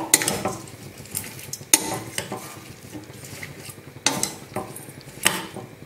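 A steel ladle stirring chopped raw vegetables in a stainless steel pressure cooker: soft rustling and scraping of the vegetables, broken by four sharp clinks of the ladle against the pot.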